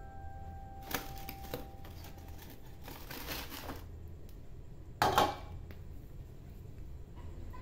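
Large, crisp fried crackers (kerupuk) crackling and scraping against one another and the paper as a freshly fried one is tipped onto the pile. There are a few short crackles, a longer rustle, and the loudest crunch about five seconds in.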